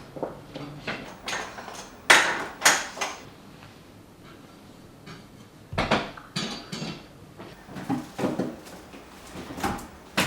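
Kitchen clatter: dishes and utensils being handled, a string of separate knocks and clinks at irregular spacing, the loudest about two seconds in.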